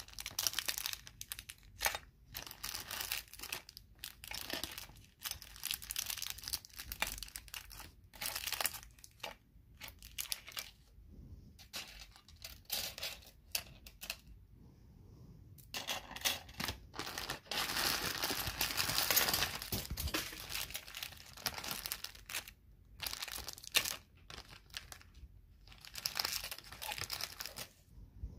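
Small clear plastic zip-lock bags crinkling and rustling as the charms inside them are handled, in irregular bursts with short pauses.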